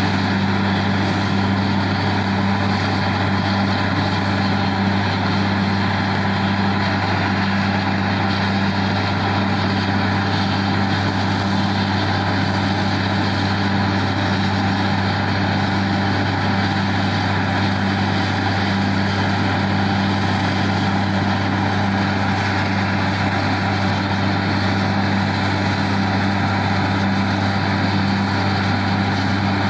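Truck-mounted borewell drilling rig running steadily while drilling: a deep, even engine drone that holds the same pitch and loudness throughout.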